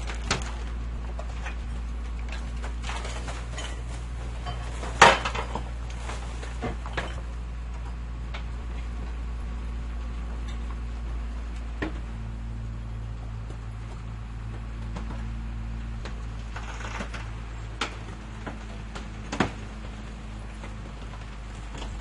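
Garbage truck engine running steadily with a low rumble while a garbage container is handled, giving scattered metal clanks and knocks. The loudest is a bang about five seconds in, followed by a few quick smaller knocks, with single knocks later on.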